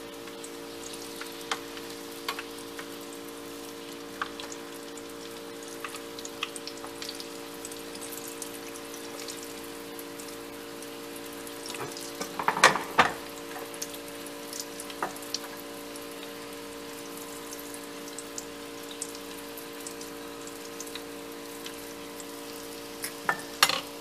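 Potato balls deep-frying in hot oil in a pan: a steady sizzle with scattered small pops. About halfway through, a metal slotted skimmer clatters against the pan as the balls are turned, and there are more clicks near the end.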